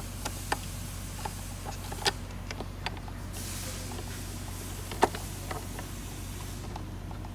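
Small clicks and taps of wire plugs and leads being handled and pressed into plastic terminal-block headers on a circuit board, over a steady low hum. The sharpest click comes about five seconds in.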